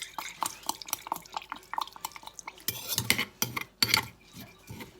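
A spoon clinking and scraping against a bowl as seasonings for a salad sauce are spooned in and stirred. The clinks ring briefly, with louder clatters about three and four seconds in.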